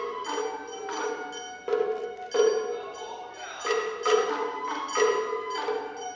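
Japanese festival hayashi music: shinobue bamboo flutes play a melody over repeated drum strokes and ringing metal strikes.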